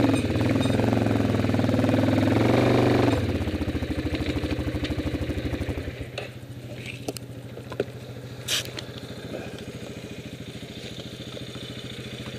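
Yamaha Grizzly 450 ATV engine running on the throttle, then dropping back to a steady idle about three seconds in as the throttle is released and the quad stops. A few light clicks sound over the idle.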